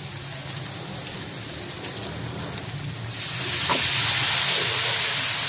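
Onion and spice masala frying in hot oil in a wok, sizzling and crackling. About three seconds in, a splash of water hits the hot oil and the sizzle jumps to a loud, steady hiss.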